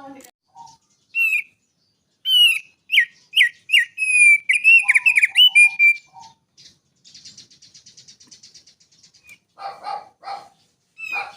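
A songbird singing a varied song. Sharp whistled chirps and slurred notes come in a fast run through the first half, then a dry buzzy trill, then a few lower notes near the end.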